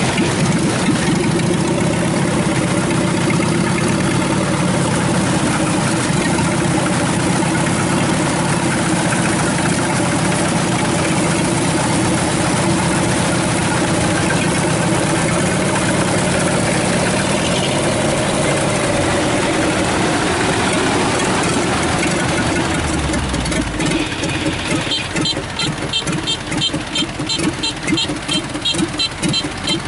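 Kubota DC-93 combine harvester's diesel engine running steadily under load. About 23 seconds in it drops away after a brief low rumble, and a fast, even high-pitched ticking of about three a second takes over.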